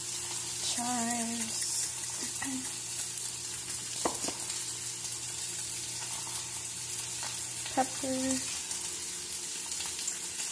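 Steady gentle sizzle and hiss from a pot of milk and sliced potatoes heating on the stove. A few light clicks and taps come through it as seasoning is shaken in.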